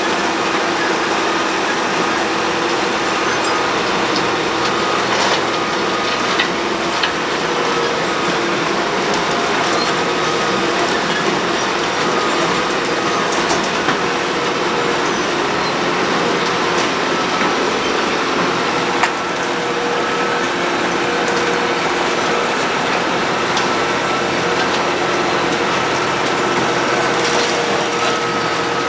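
Road planer (cold milling machine) running steadily: a loud, dense mechanical din with a few steady tones in it and a few faint knocks.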